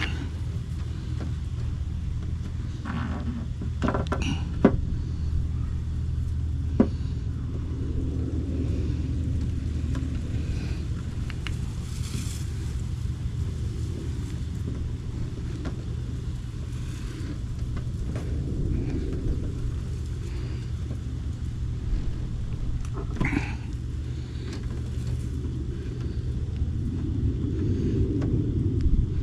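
A steady low rumble throughout, with a few sharp clicks and light knocks from hands working a rubber antenna boot into its seat on the truck's antenna base.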